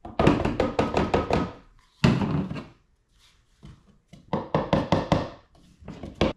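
A bowl knocked again and again against the rim of a plastic container to shake the last of the powder out, in four quick runs of sharp taps, the first and longest at the start.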